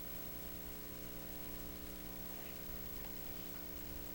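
Faint steady electrical hum with hiss: room tone in a pause of the recording, with no other sound.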